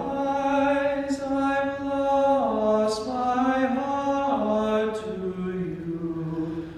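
Male a cappella group singing sustained chords in close harmony without instruments. The chord shifts about every two seconds, with a few brief hissed "s" consonants.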